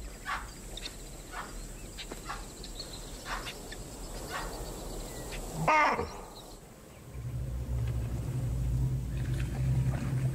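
Baboon alarm barks: a string of short sharp calls, then one loud bark that falls in pitch about six seconds in, warning that lions have been spotted. A low steady hum sets in about a second later.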